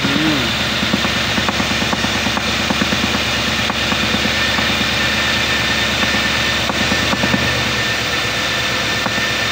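Nissan Patrol Y62 engine idling steadily, heard close at the intake manifold, with a steady high whine over the engine note and faint irregular ticks.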